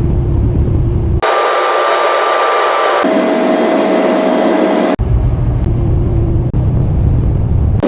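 Strong wind blowing over the microphone, a loud steady noise that switches abruptly between a deep buffeting rumble and a broad hiss, changing character about a second in, at three seconds and again at five seconds.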